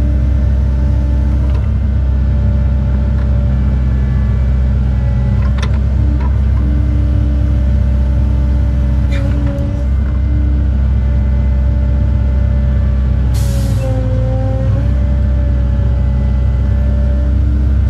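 Cat 309 mini excavator's diesel engine and hydraulics running steadily, heard from inside the operator's cab while the arm and bucket work, with a tone that wavers in pitch. There are a few sharp knocks and one short hiss a little past two-thirds of the way through.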